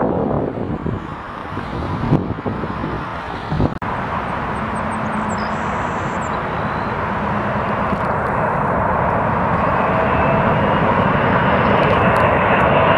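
Airbus A380 on final approach: the steady rush of its four jet engines grows slowly louder as it comes nearer. Before that, for about the first four seconds, wind buffets the microphone over a landing jet's rumble, and the sound cuts off suddenly.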